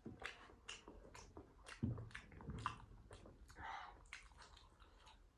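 Close-miked chewing of momo dumplings: soft, wet mouth clicks and smacks, a few a second.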